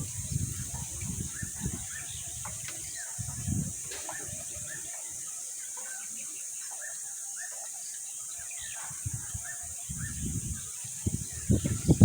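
Birds chirping over a steady high hiss, with wind buffeting the microphone in gusts at the start and again near the end.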